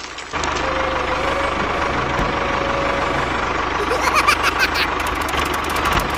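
Tractor engine idling steadily, starting abruptly about a third of a second in. About four seconds in come a few brief squeaky chirps, then a quick run of clicks.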